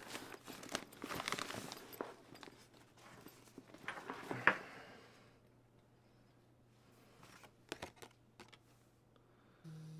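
Rustling and crinkling as hands rummage inside a soft-sided cooler bag and shift it about, busiest in the first couple of seconds and dying away about halfway through, then a few light clicks and taps.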